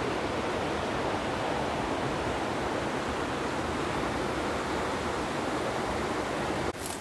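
Steady rush of flowing river water from the East Fork of the San Gabriel River, cutting off abruptly near the end.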